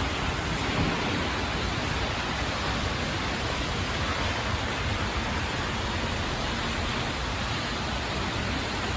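Steady, even rush of heavy thunderstorm rain and strong wind, with wind buffeting the microphone.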